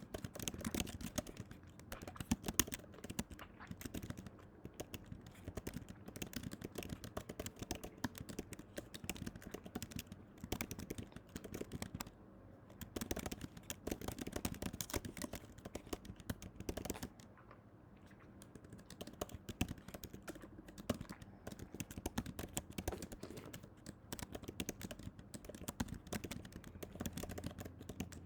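Rapid, irregular clicking and tapping, with two brief pauses.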